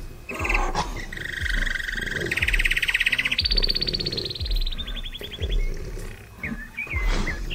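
A bird's or insect's buzzing trill in several steps of different pitch, followed by short wavering whistles, over a run of low thumps about every half second.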